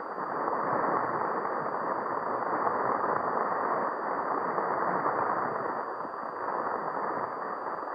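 A steady, even rushing noise with no tune or voice in it.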